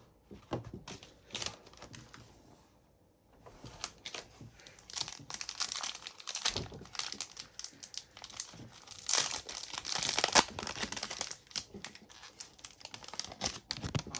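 Upper Deck hockey card pack wrappers being torn open and crinkled, in irregular rustling bursts with a short lull about three seconds in and the busiest crinkling around nine to ten seconds in.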